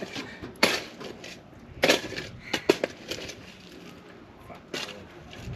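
Scraping and crunching of digging in dirt, in a few separate strokes.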